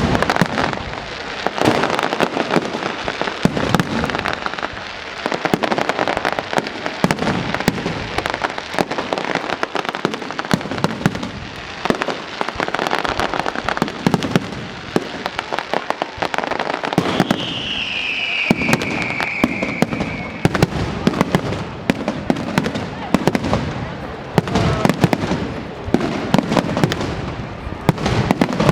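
Fireworks going off in rapid succession: a dense, irregular run of bangs and crackles, with a single whistle falling in pitch about seventeen seconds in.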